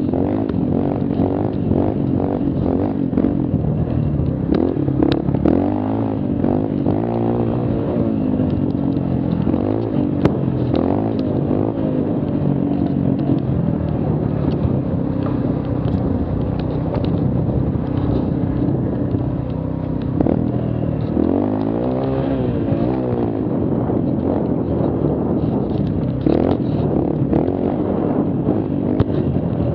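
Mini quad engine revving up and down with the throttle, its pitch rising and falling in waves, with scattered knocks and clatter from the machine over the rough ground.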